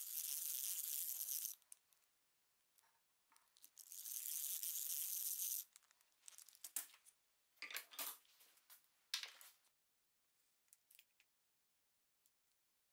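Small drill bit boring into a wooden disk, a scratchy hiss in two runs of about one and a half and two seconds. This is followed by a few shorter scrapes and knocks, then quiet.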